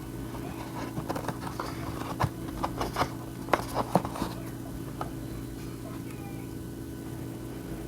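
Small plastic camera mounts and packaging being handled, a run of sharp clicks and taps between about one and four seconds in, over a steady low hum.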